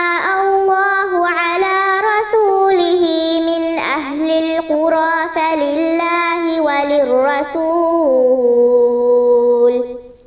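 A girl's solo voice chanting Quranic recitation in melodic tajweed style, the pitch winding through ornamented turns. Near the end she holds one long, slowly falling note, then stops.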